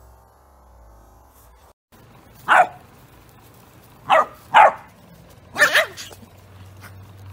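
Yorkshire terrier barking: five sharp, high barks, first a single one, then two close together, then a quick double.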